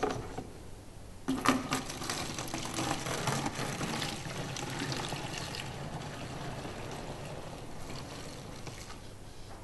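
Soapy liquid poured from a measuring jug through a funnel into a plastic bottle. After a brief knock about a second in, a steady pouring stream runs and tapers off toward the end.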